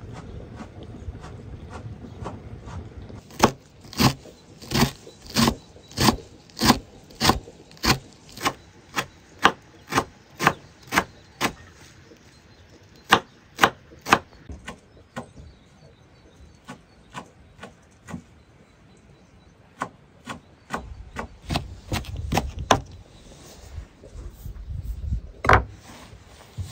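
Knife chopping fresh herbs on a wooden cutting board: a steady run of sharp knocks, a little under two a second, then a pause and a few more cuts. Near the end, rustling as the chopped greens are pushed together by hand.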